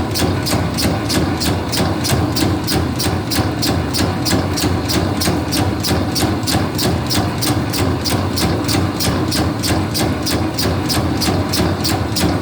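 Meatball-forming machine running: a steady motor hum with even, rhythmic clicking about four times a second.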